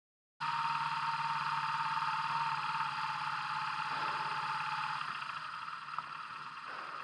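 BMW R1200GS boxer-twin motorcycle engine running at low revs as the bike rides slowly up a ferry ramp onto the car deck. The sound cuts in suddenly about half a second in, with a steady whine over it that stops about five seconds in.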